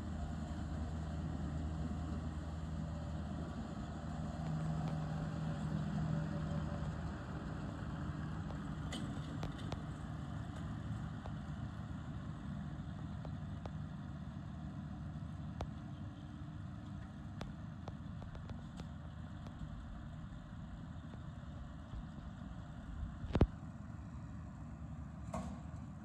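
New Holland tractor's engine running steadily as it pulls a McHale Fusion baler-wrapper while baling silage, a little louder around five seconds in and slowly easing after. A sharp knock stands out about twenty-three seconds in.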